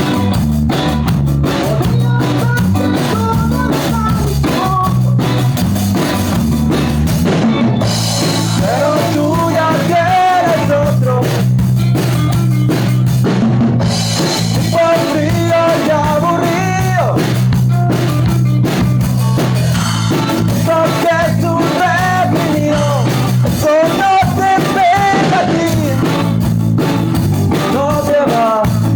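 Rock song with a driving drum kit, guitar and bass under a sung melody that comes and goes in phrases.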